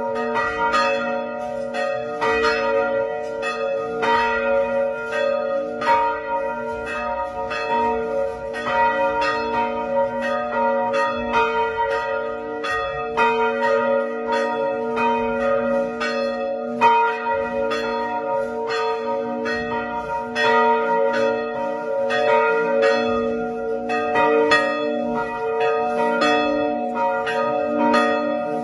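Church bells of a Vietnamese Catholic parish church ringing on continuously in a steady stream of strokes, their tones hanging on between strikes.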